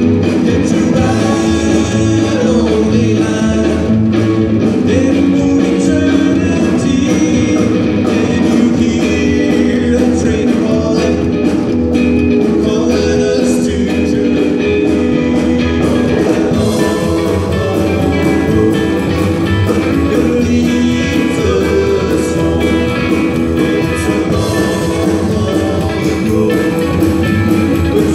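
Live band playing a rock-and-roll song: a man singing over electric guitar, upright double bass and a drum kit.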